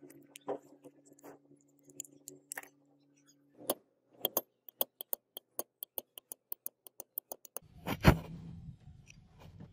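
Small metal tools clicking against an aluminium jigsaw gear housing clamped in a steel vise. Scattered clicks give way to a quick, even run of light clicks, about six a second. Near the end comes one loud metal clack, then scraping.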